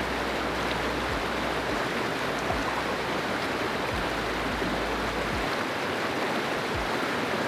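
Shallow, fast-flowing stream rushing over rocks: a steady, even rush of water, with a few soft low thumps now and then.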